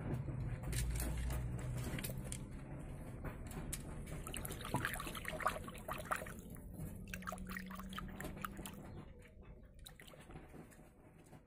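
Nutrias drinking from a water dish, lapping and splashing the water with many small clicks and sloshes; the sound dies away near the end.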